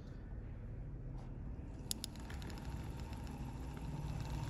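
Small handheld rotary tool running with a steady motor hum and whine as its carving bit works into a piece of hot-glue stick. The whine grows stronger near the end, and there are a few light clicks about two seconds in.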